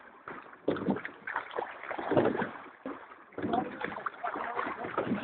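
Crew rowing a multi-oar rowing boat: oars working through the water in a repeating stroke rhythm, with splashing and short quiet gaps between strokes.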